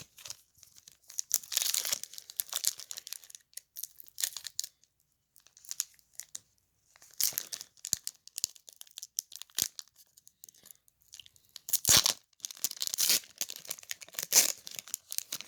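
Foil booster pack wrapper being torn open and crinkled by hand, in several short rustling bursts with quiet gaps between.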